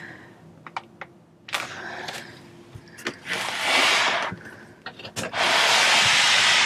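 Motorhome pull-out bed extension being drawn out by its handles: the base and its plastic-wrapped mattress section slide and rustle in two long strokes, about three seconds in and again from about five seconds, with scattered clicks and knocks between.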